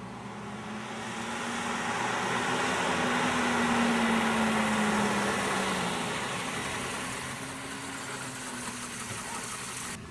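Mercedes-Benz 190 saloon driving along a road: engine and tyre noise swells to its loudest about four seconds in and then eases off, with a low engine drone that rises and then falls away.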